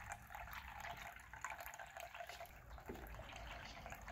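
Faint room tone: a steady hiss with only a few faint, brief sounds in it.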